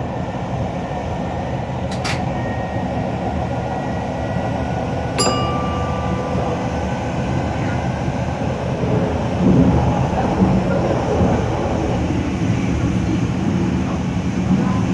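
Train running along the line, heard from inside at the front: a steady rumble of wheels on rail. A sharp click comes about two seconds in, and a louder clink with a brief ringing tone about five seconds in.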